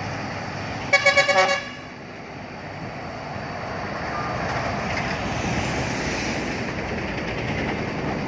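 A vehicle horn sounding in a rapid string of about five short toots about a second in, over steady road-traffic noise that swells as a truck goes by in the second half.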